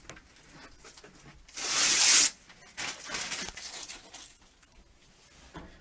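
Protective plastic film being pulled off a PC case: one loud rip lasting under a second, about one and a half seconds in, followed by fainter rustling of the plastic.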